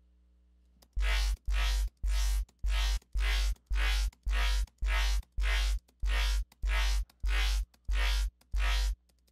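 Distorted dubstep bass patch in the Xfer Serum synthesizer, played as a fast run of identical short notes at about two a second after a second of quiet. Each note has a heavy sub-bass and a bright, gritty top from Diode 2 distortion swept by an LFO.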